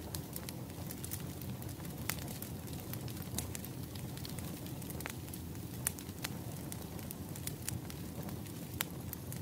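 Wood fire crackling: irregular sharp pops, a few a second, over a steady low rush of burning.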